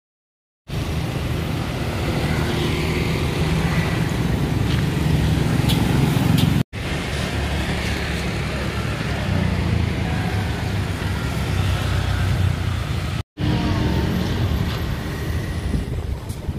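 Street ambience dominated by a steady, loud traffic rumble, with faint voices mixed in. It starts abruptly just under a second in and cuts out sharply twice, at about seven and thirteen seconds.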